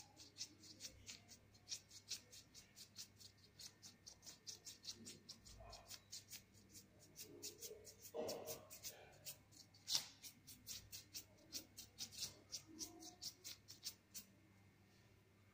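Paintbrush strokes on the painting surface: faint, quick scratchy strokes, about four a second, stopping shortly before the end.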